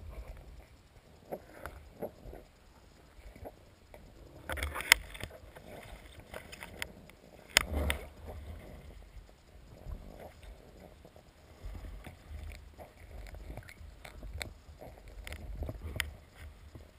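Water moving against an underwater camera housing mounted on a speargun, a low rumble that comes and goes, with scattered sharp clicks and knocks of the gear. The loudest knocks come about five and seven and a half seconds in.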